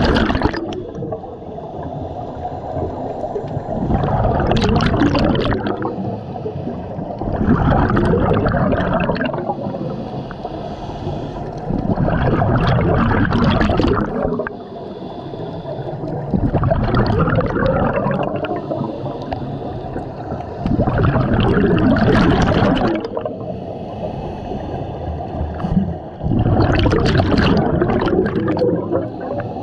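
A scuba diver breathing through a regulator underwater: a gurgling rush of exhaled bubbles about every four to five seconds, with quieter inhale hiss between breaths.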